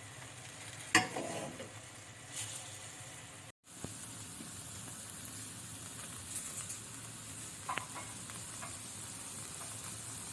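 Shrimps frying in hot olive oil in a pan, a steady sizzle with a few sharp clicks of the stirring utensil against the pan. The sizzle stops for a split second a little over three seconds in.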